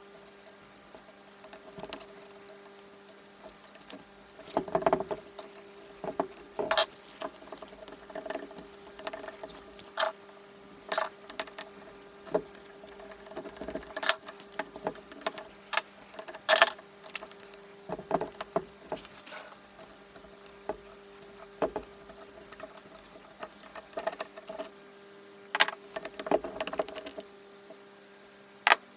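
Metal engine parts and hand tools clinking, tapping and clattering on a workbench as a Honda CB450 engine is taken apart, in irregular knocks and clicks. A steady low electrical hum runs underneath.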